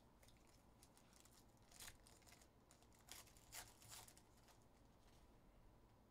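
Faint crinkling and tearing of a foil trading-card pack wrapper, a Contenders Optic basketball pack, as it is ripped open by hand. It comes as a handful of short rustles between about two and four seconds in.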